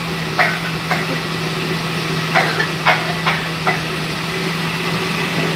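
Steady low machine hum, with a few short sharp sounds over it about a second in and again around the middle.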